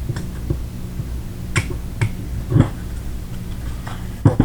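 Sharp clicks and knocks of small gun parts and tools handled on a workbench, about six at irregular intervals, the loudest near the end, over a steady low hum.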